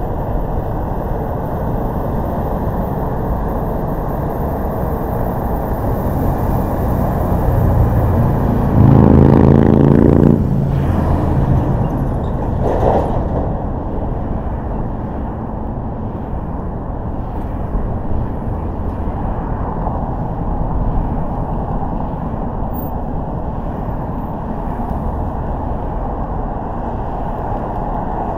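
Steady road and engine rumble of a car driving on city streets. About nine seconds in comes a louder vehicle engine sound, its pitch rising in steps for a second or two, followed by a brief smaller noise a couple of seconds later.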